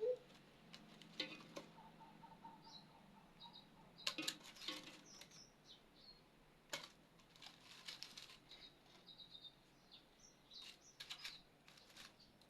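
Faint short bird chirps mixed with scattered light clicks and taps.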